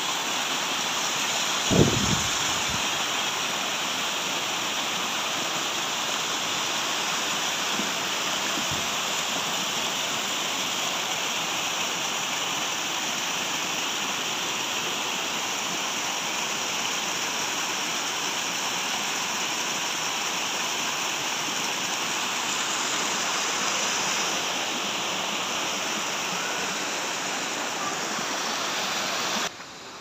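Small waterfall pouring over moss-covered rock, a steady rush of splashing water. A brief thump about two seconds in. The water sound cuts off suddenly near the end.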